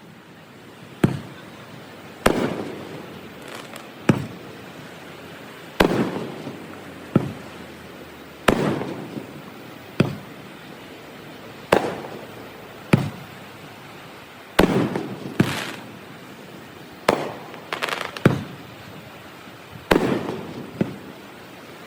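Aerial fireworks shells bursting in a steady barrage, a sharp bang every second or two, each trailing off in a rolling rumble and echo, with a quick double and triple crackle about two thirds of the way through. The recording is played at double speed.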